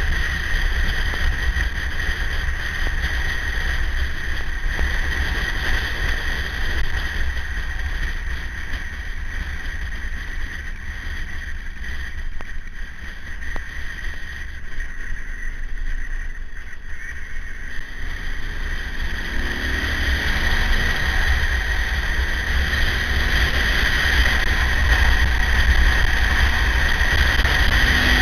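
On-board sound of a KTM 950 motorcycle's V-twin engine running at road speed, largely buried under wind rumble on the microphone. It eases off around the middle and picks up again in the last few seconds, its note rising as the bike accelerates.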